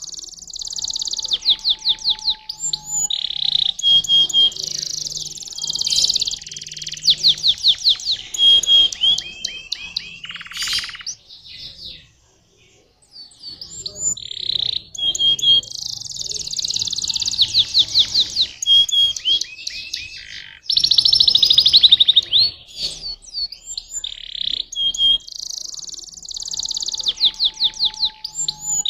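Domestic canary singing a long, fast, high-pitched song of rapid trills and rolls, with a pause of about a second and a half near the middle before it starts again.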